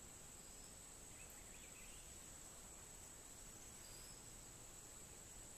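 Near silence: a steady high-pitched insect drone, with a few faint bird chirps.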